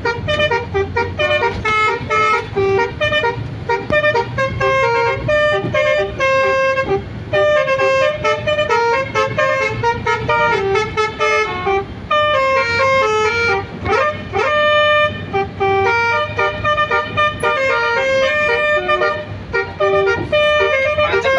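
Basuri multi-tone 'telolet' bus horn playing a fast melody of short stepped notes, with a quick upward sweep about fourteen seconds in.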